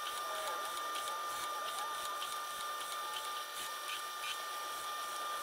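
Drill press running with a steady high whine while a spinning abrasive pad is pressed again and again onto galvanized sheet steel, a short scuff about twice a second as each swirl of an engine-turned pattern is ground in.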